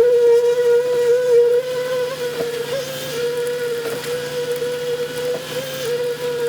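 A machine motor running steadily with a constant whining note, with a few faint knocks.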